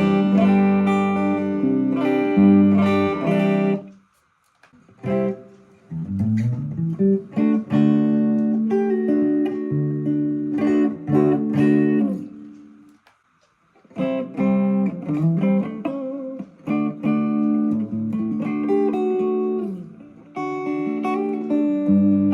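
Electric guitar played through a small amp head into a 10-inch speaker cabinet: chords and single notes ringing out, with a bend near the middle, stopping briefly twice.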